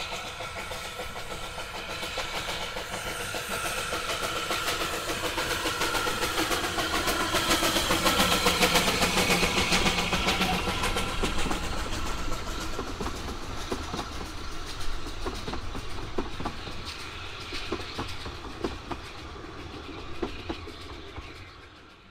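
Narrow-gauge steam train hauled by the replica tank engine 762 'Lyn' passing by. It grows louder as it approaches and is loudest about eight to ten seconds in. As the coaches go past and it fades away, the wheels click on the rails.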